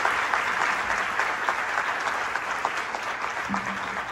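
Audience applauding at the end of a song, the clapping slowly dying down.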